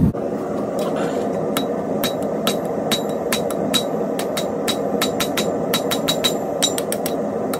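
Blacksmith's hammer striking a small piece of metal on an anvil in quick, light blows about two to three a second, each with a short metallic ring, over a steady background noise.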